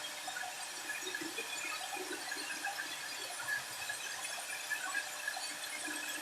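CNC router spindle cutting solid wood: a steady hiss with faint, wavering high tones.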